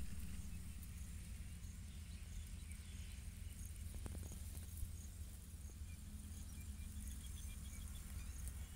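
Faint outdoor ambience: insects chirping in short, high, repeated notes over a steady low rumble, with a single light click near the middle.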